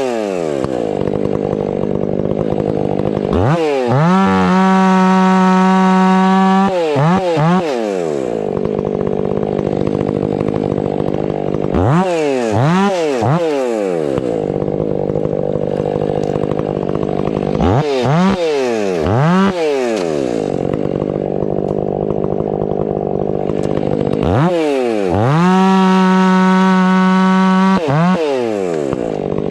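Stihl 500i two-stroke chainsaw run up to full throttle and held for about three seconds, twice, with quick throttle blips between and dropping back to a lower speed each time.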